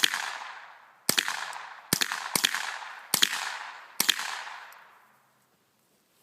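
.22LR AR-15-style rifle fired six times in about four seconds, at uneven spacing, each sharp shot echoing away.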